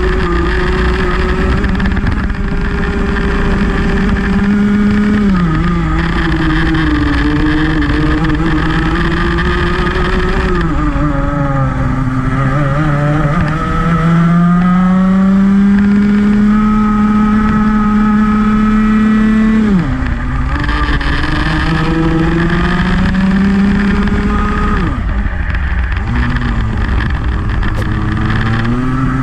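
Rotax Max 125cc single-cylinder two-stroke kart engine at race pace. Its pitch climbs slowly for several seconds under acceleration, then drops sharply as the driver lifts for a corner, four times over.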